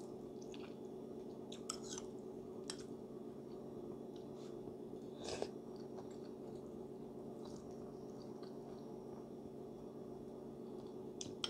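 A person chewing a mouthful of instant ramen noodles, with scattered short clicks and taps, the loudest about five seconds in, over a steady low hum.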